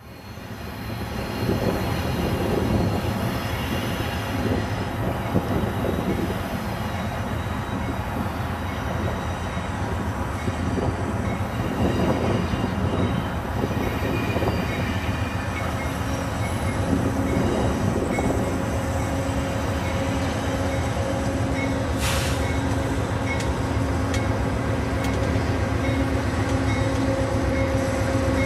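Amtrak passenger train behind a GE Genesis diesel locomotive pulling slowly into the station: the diesel engine and the rumble of the wheels on the rails. A steady tone joins in a bit past halfway and holds.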